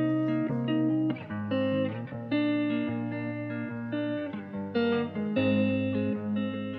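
Instrumental background music, a melody of short clear notes over a steady low note.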